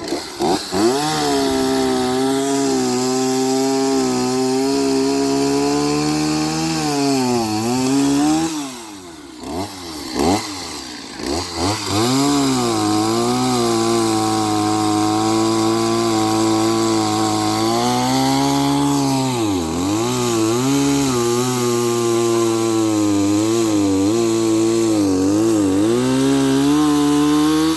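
Two-stroke chainsaw running at high revs, its engine note dropping and picking back up several times as the saw is worked through fallen trees.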